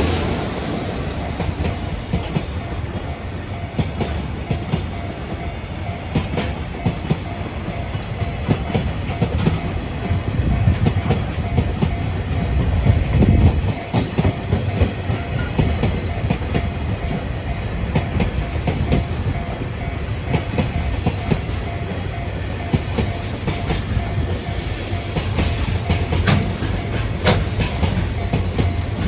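Long freight train of Koki container wagons, hauled by an EF66 100-series electric locomotive, rolling past at a level crossing. The wheels clatter steadily over the rail joints with an unbroken low rumble.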